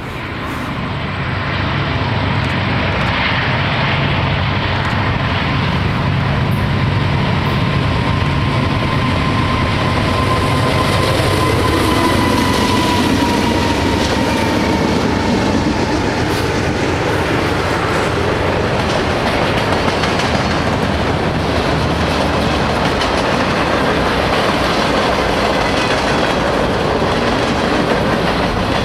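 CN freight train passing close by. Four diesel-electric locomotives (GE C44-9W, C40-8, C40-8M and EMD SD75I) run past with a steady low engine drone and a whine that drops slightly in pitch. About two-thirds through, this gives way to the steel wheels of the freight cars rolling and clicking over the rails.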